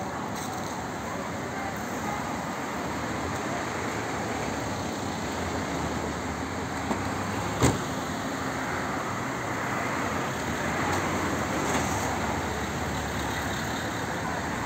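Street traffic noise of cars driving by on the road. A car passes close by about halfway through, and a single sharp click comes just before it.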